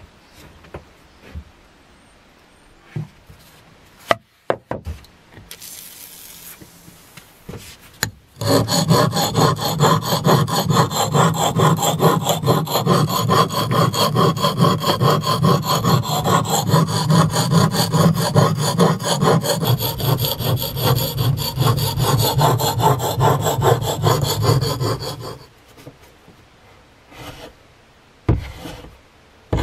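Steel axe head being honed on a wet whetstone: a long run of quick, even back-and-forth rubbing strokes that starts about eight seconds in and stops abruptly near the end, after a few light handling knocks.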